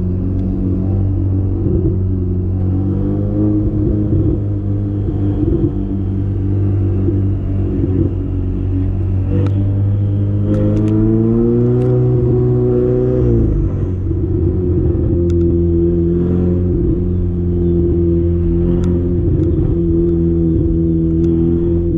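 Ferrari 488 Spider's 3.9-litre twin-turbo V8 running through a Capristo straight-pipe exhaust with muffler and catalytic converters deleted, cruising at low speed with a deep, steady drone. About eight seconds in the revs climb for a few seconds, then drop away suddenly, with a few faint sharp clicks scattered through the run.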